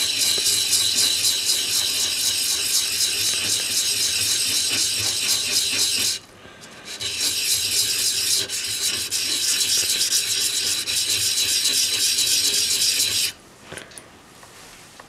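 A small rusty part of a Stanley No. 71 router plane rubbed by hand on 400-grit sandpaper wetted with WD-40 over a granite tile: continuous gritty scratching as the rust is sanded off. It breaks off briefly about six seconds in, then resumes until shortly before the end.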